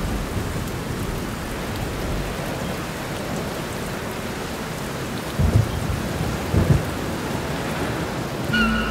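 Steady rain, with two short low rumbles of thunder a little past halfway. Music with held notes comes in near the end.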